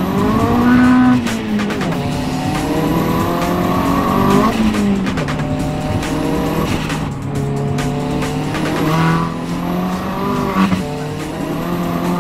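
Turbocharged 1.8-litre four-cylinder (Audi S3 engine) in a VW Lupo GTI, running about 2 bar of boost through a 3-inch decat exhaust, pulling hard under acceleration and heard from inside the cabin. The revs climb and drop back several times as it shifts up through the gears, with a faint high whine rising with the revs.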